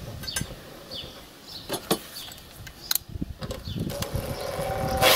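Cordless impact driver driving a screw through a metal straightedge into a wooden bench to clamp it down. Its motor whines steadily for about two seconds near the end and finishes in a short, loud burst. Before that come a few clicks and knocks of the tool and bar being handled.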